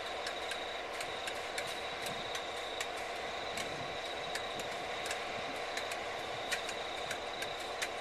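DC-class diesel-electric locomotive's EMD 12-645 two-stroke diesel engine running steadily just after a restart, with the engine prone to shutting itself down again. A thin steady high whine and irregular sharp ticks sit over the engine hum.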